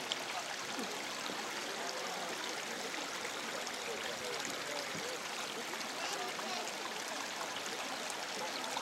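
Steady outdoor ambience: an even rushing hiss with a faint, indistinct murmur of people's voices throughout.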